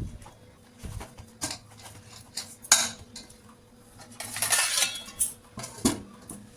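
Kitchen utensils and dishes clinking and knocking: a handful of separate sharp clinks, the loudest just under three seconds in, with a scrape lasting about a second around four to five seconds in.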